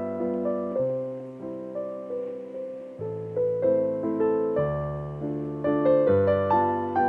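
Relaxing solo piano music: a slow, gentle piece of notes and chords struck and left to ring and fade.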